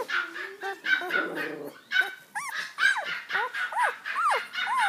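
Young Border Collie puppy whining repeatedly: a string of short high calls, each rising and then falling, coming quickly one after another through the second half.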